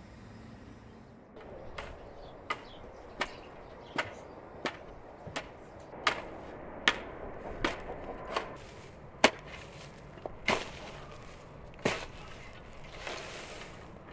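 A spade blade chopping repeatedly into dry grass and soil, one sharp strike a little under a second apart, spacing out toward the end, then a short scraping rustle.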